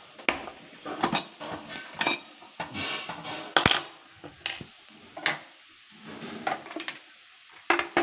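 Irregular metallic clinks and taps of small steel parts and a screwdriver on an industrial sewing machine's metal bed as the needle plate is unscrewed and lifted off, a few of the clinks ringing briefly.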